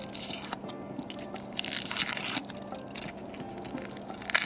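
Thin foil wrapper of a Kinder Surprise chocolate egg being peeled off by hand, crinkling and tearing in irregular bursts, loudest in the middle.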